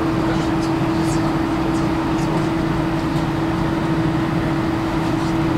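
Steady cabin noise inside an Airbus A320, a constant drone with one held tone from the running aircraft systems and engines.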